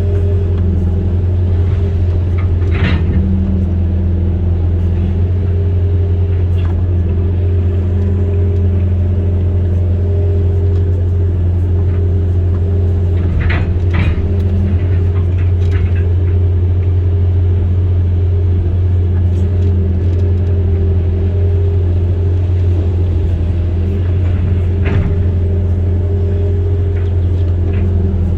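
Amphibious excavator's diesel engine running steadily with a deep, even hum, with a few short knocks at irregular intervals.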